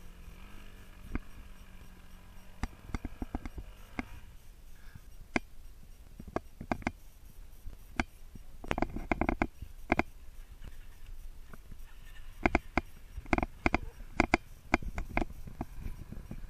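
A dirt bike's engine idling faintly, fading out about four seconds in. After that come irregular clicks and knocks close to the microphone, loudest in two clusters in the second half.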